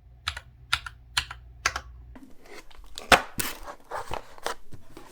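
Four evenly spaced sharp clicks, then the rustle, crinkle and clicks of a keyboard kit's packaging being handled and opened, with one louder snap about three seconds in.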